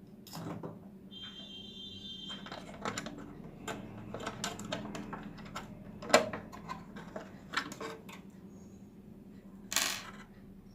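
Irregular clicks and knocks of small parts and tools being handled on a workbench, with a brief high tone about a second in and a short scraping hiss near the end, over a faint steady hum.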